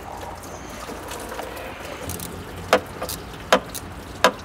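Three sharp metallic clicks, a little under a second apart in the second half, from hand tools working the Torx bolts of the oil filter housing. A steady low shop hum runs underneath.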